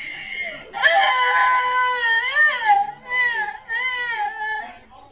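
A woman's crying and sobbing played back through a phone voice-changer app, slowed down and pitched up, so the sobs come out as wavering, whining tones. One long cry about a second in is followed by two shorter ones.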